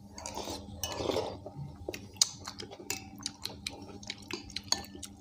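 Metal spoons clinking and scraping against ceramic bowls of haleem as two people eat, in many quick, irregular taps.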